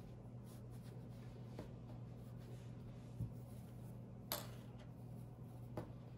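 Faint rustling and handling of fabric strips as an Amish knot rug is worked by hand, with a few short sharp handling sounds, the clearest about four seconds in, over a steady low hum.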